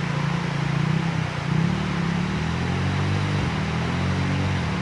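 A motor vehicle engine running steadily over an even hiss of rushing floodwater.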